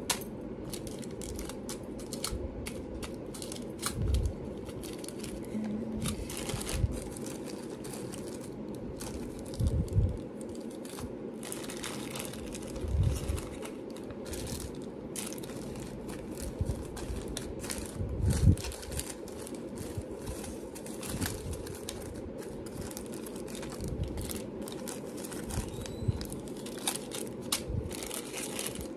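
Small plastic bags of jewelry findings crinkling and rustling as they are handled and sorted, with a few soft knocks, over a steady low background hum.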